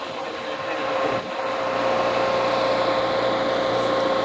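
A steady machine hum holding a constant pitch, under wind rushing on the microphone, with a brief dip about a second in.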